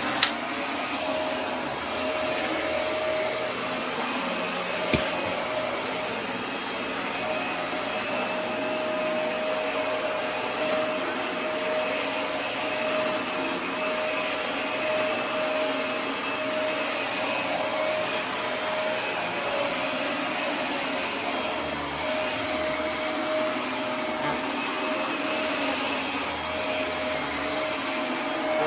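Dyson DC24 ball upright vacuum cleaner running steadily while vacuuming, its motor giving a constant high whine. There is a sharp click just after the start and another about five seconds in.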